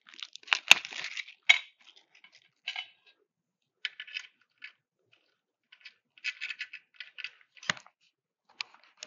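A small plastic bag of screws crinkling and screws clicking against metal while a mounting screw is started by hand. Short rustles are broken by a few sharp clicks, the loudest near the start and another late on.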